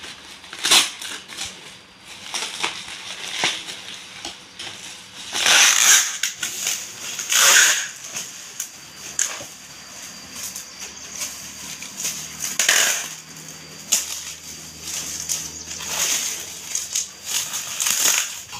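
Bubble wrap crinkling and rustling as it is pressed and handled, with several louder rips of packing tape being pulled from a handheld dispenser.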